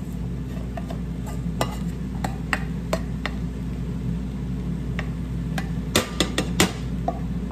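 Wooden spoon scraping cooked rice out of a rice cooker's inner pot into a cooking pot, with scattered light clicks and knocks of the spoon against the pots. There are a few sharper knocks about six seconds in, over a steady low hum.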